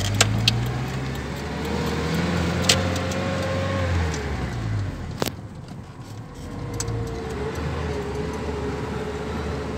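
GAZelle van's engine heard from inside the cab while driving: the engine note rises slowly, falls away about four to five seconds in, then picks up again and holds steady. A few sharp clicks and rattles from the cab, the loudest just after five seconds.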